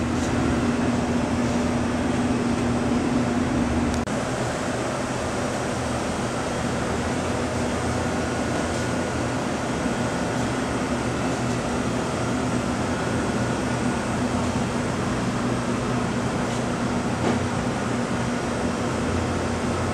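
Steady mechanical hum and rushing air of ventilation machinery. A low steady tone in the hum stops about four seconds in.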